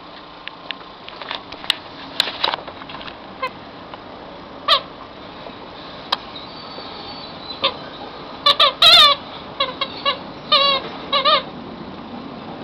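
Yorkshire terrier puppy giving a run of short, high whimpers and squeaks with wavering pitch, bunched in the second half, after a few scattered light clicks.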